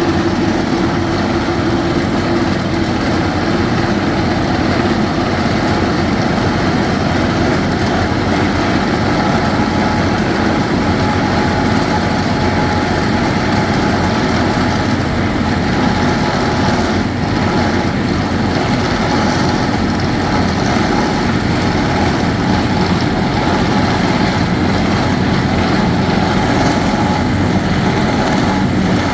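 Heavy construction machinery of a rock core-drilling rig running steadily, a loud, even mechanical noise with no break.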